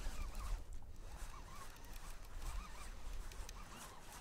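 Faint birds calling: a series of short, wavering calls repeated several times, over a steady low rumble.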